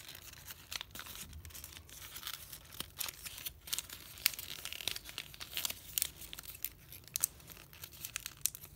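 Origami paper crinkling and rustling in short, irregular crackles as it is creased and folded by hand into an inside reverse fold.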